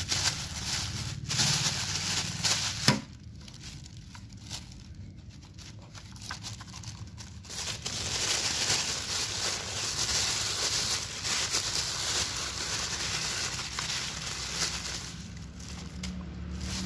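Clear plastic bag crinkling and rustling as it is pulled open and off a tool, with a sharp tap about three seconds in. After a quieter few seconds the crinkling picks up again and goes on until near the end.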